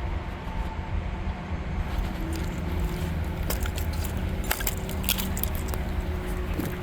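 Diesel engine of an ASV RT-110 compact track loader running steadily, with a cluster of sharp cracks and snaps from about three and a half to five and a half seconds in.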